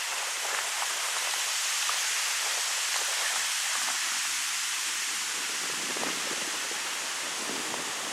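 Wind blowing through birch trees: a steady rushing hiss with a fine crackling rustle of leaves through it.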